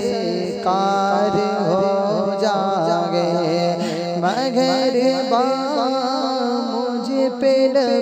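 Naat interlude: a wordless vocal melody sliding between notes over a steady low drone.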